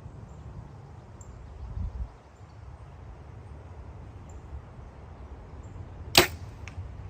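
Compound bow firing once: a single sharp snap of the shot about six seconds in, followed about half a second later by a faint knock as the arrow strikes the foam target.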